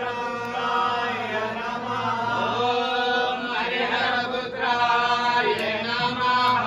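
Mantra chanting for a homam fire offering: a voice line held on long, drawn-out notes that bend at the ends of phrases, with no break.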